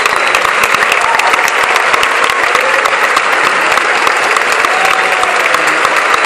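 Theatre audience applauding steadily at a curtain call: dense, continuous clapping from a full house.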